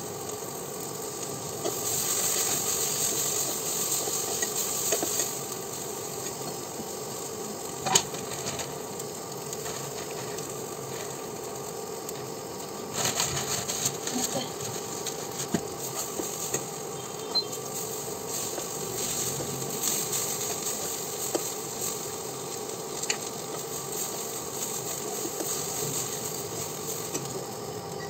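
Noodles sizzling in a frying pan, with a utensil stirring and scraping against the pan. A sharp tap sounds about eight seconds in and a short spell of clatter comes near the middle.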